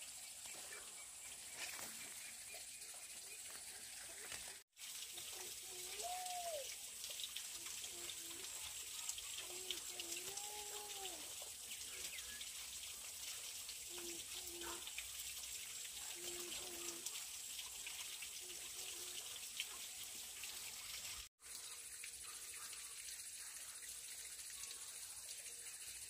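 Faint outdoor ambience: a steady high hiss, with a few short, soft pitched calls in the middle.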